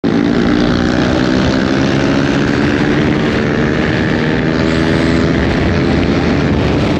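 KTM single-cylinder motorcycle engine running hard, a loud, steady engine note that holds without much change in pitch.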